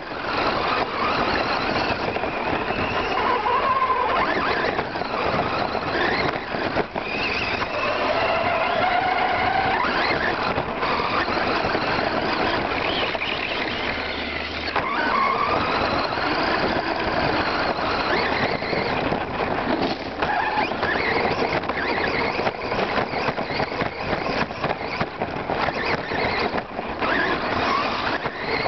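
Electric RC short-course truck driving hard over rough dirt, heard from a camera mounted on it. Its motor and gear whine rises and falls in pitch as it speeds up and slows, over a constant rattle and rush of tyres, stones and body shaking.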